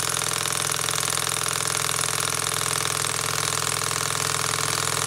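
PM Research Peanut Rider, a small Rider-type Stirling hot-air engine, running steadily with a fast, even mechanical ticking from its moving parts.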